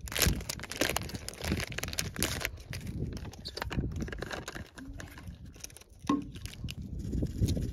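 Foil drink-mix packet crinkling as it is torn open by hand. After that come irregular clicks and knocks as a plastic water bottle is handled and its cap twisted off.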